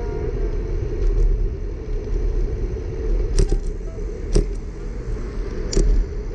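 Riding a bicycle along an asphalt bike lane: a steady rumble of wind on the microphone and tyres on the road, with three sharp knocks in the second half.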